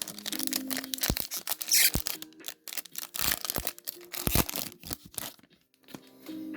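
Foil wrapper of a Pokémon TCG booster pack being torn open and crinkled: a run of crackles and rips that dies away about five seconds in.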